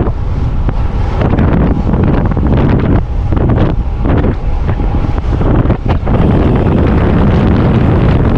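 Wind buffeting the microphone of a road bike's camera at descending speed: a loud, steady rumbling roar that dips briefly a few times.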